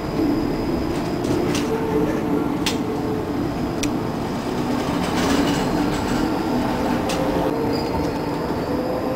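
Tram running along street track, heard from inside the car: a steady rumble of wheels on rails with a drawn-out whining tone and several sharp clicks.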